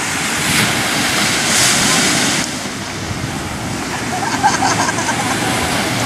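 Small surf washing onto a sandy beach in a steady rush, one wash swelling louder for about two seconds near the start, with wind buffeting the microphone.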